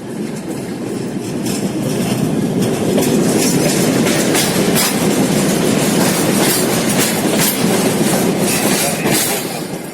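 A train going by, its wheels clattering over the rail joints with many sharp clacks; it grows louder over the first few seconds, holds, then fades toward the end.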